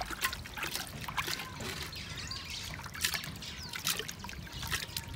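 Water trickling and splashing in irregular small splashes as a clay pot is dipped into a shallow stream and water is scooped into it by hand.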